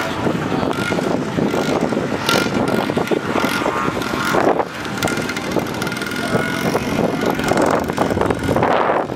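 Snowmobile engine running steadily, with a faint steady whine over the noise of the machine.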